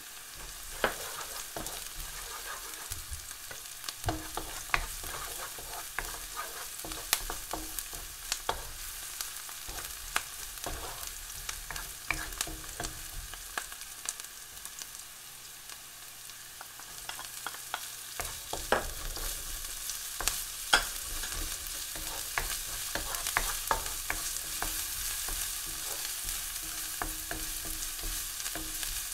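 Diced onion and garlic sizzling in hot oil in a nonstick pan, with many sharp clicks and scrapes from a wooden spatula stirring them. The sizzle grows louder about two-thirds of the way in.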